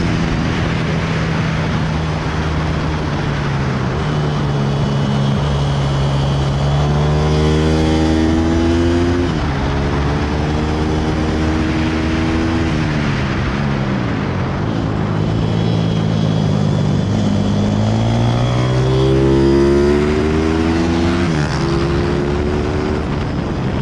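Pit bike engine heard from on board while riding hard, over heavy wind rush. The engine note climbs through the revs and drops suddenly about three times as gears change.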